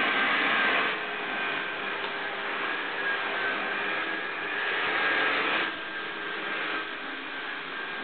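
Kärcher upright vacuum cleaner running, a steady rush of air with a motor whine; the sound drops a little about a second in and again near six seconds.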